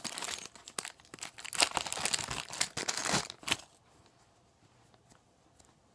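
Plastic packaging crinkling and rustling in short bursts as a squishy toy is handled, stopping a little over halfway through.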